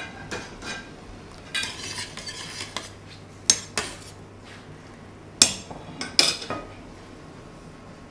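Metal tongs stirring pici pasta in a stainless steel stockpot of boiling water, clinking and scraping against the pot in a string of sharp metallic knocks, the loudest a few seconds in and again past the middle.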